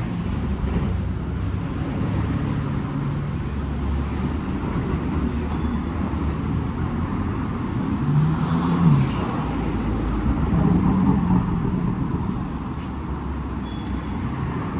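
City street traffic: cars and other vehicles driving past in a steady rumble, with an engine note swelling about eight seconds in and again around eleven seconds.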